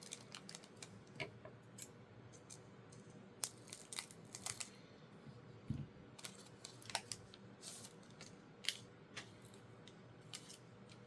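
Pokémon trading card booster pack being opened and its cards handled: faint, scattered crinkles and ticks of the foil wrapper and card stock at irregular moments.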